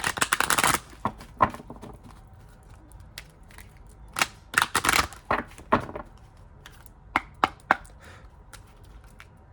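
A tarot deck being shuffled and handled: a short rush of riffling cards at the start, then scattered snaps and taps of cards, with a denser cluster about halfway through.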